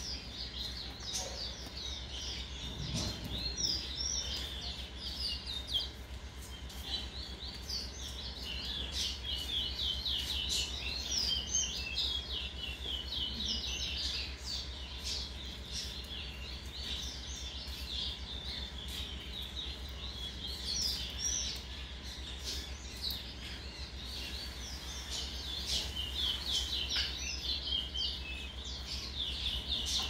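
Caged towa-towa seed finches singing: fast, continuous runs of sharp chirped notes with brief pauses, over a steady low hum.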